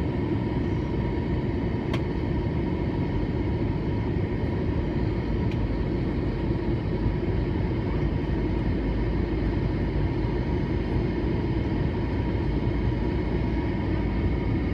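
Airbus A321-200 cabin noise on approach: a steady rush of airflow and jet engine noise, heavy in the low end, with faint steady whining tones above it. A faint tick about two seconds in.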